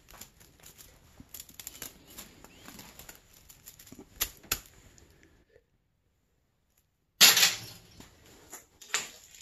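Thin copper magnet wire off a small transformer rustling and ticking as it is pulled loose and bunched by hand, with two sharper clicks about four seconds in. A short gap of near silence follows, then a loud clatter about seven seconds in and a few more clicks near the end.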